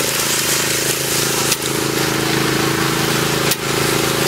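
Small petrol engine of a walk-behind power trowel running steadily at work speed, with two brief dips in the sound about two seconds apart.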